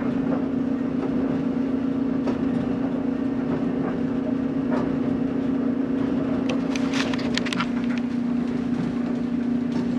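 Steady hum of a running electric motor and fan, with a few sharp handling clicks about seven seconds in.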